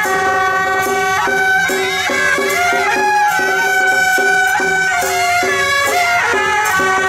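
Several suonas, Chinese double-reed horns with brass bells, playing a traditional melody together, with long held notes over a steady pulse of lower repeated notes.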